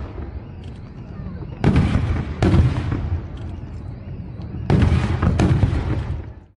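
Fireworks exploding: four sharp bangs in two pairs, each followed by a long fading tail. The sound cuts off suddenly near the end.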